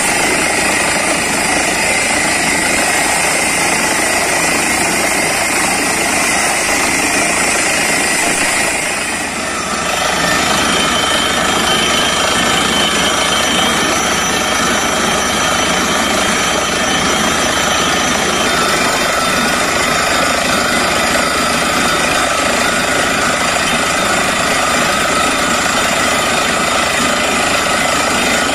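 Truck-mounted borewell drilling rig running, its air-driven down-the-hole hammer drilling while compressed air blows water and rock cuttings up out of the bore. A loud, steady machine din that dips briefly and changes in tone about ten seconds in.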